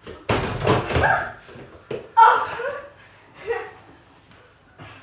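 Small basketballs knocking against a Pop-A-Shot arcade game's backboard and rim several times, mixed with children's shouts and laughter.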